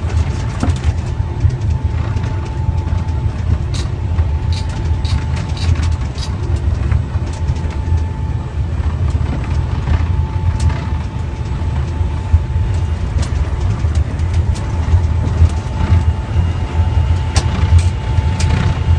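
Low, steady rumble of a Boeing jetliner taxiing, heard from inside the flight deck. A faint steady whine runs underneath, with scattered light clicks and rattles.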